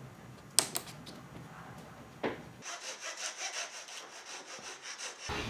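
A few sharp taps of a tool on kumiko wood, then, from about halfway through, a fine-toothed Japanese hand saw cutting a piece of kumiko lattice in quick, even strokes.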